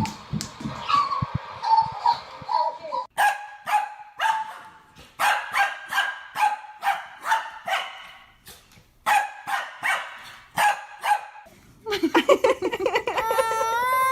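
A dog barking in a quick series of short, sharp barks, two or three a second, starting about three seconds in. Near the end comes a drawn-out, wavering cry.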